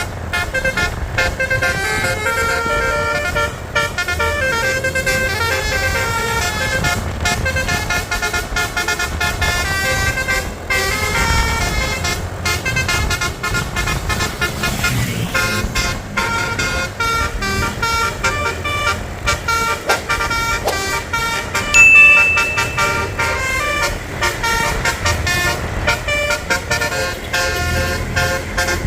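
Basuri multi-tone telolet horns on buses playing quick melodic runs of notes, over the low rumble of bus engines and road noise. About 22 seconds in, a short, loud high note stands out as the loudest sound.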